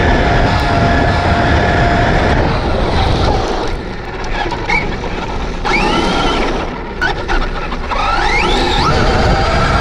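Brushless motor and drivetrain of a Traxxas Rustler 4x4 RC truck, heard from a camera on the truck, whining at speed over heavy wind rush. In the middle it drops back, with the whine gliding up and down as the throttle is worked. It comes back to a steady whine near the end.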